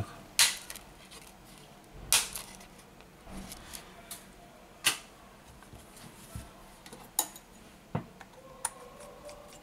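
A handful of sharp clicks and taps, spread a second or more apart, from a smartphone and a small precision screwdriver being handled and set down on a silicone repair mat.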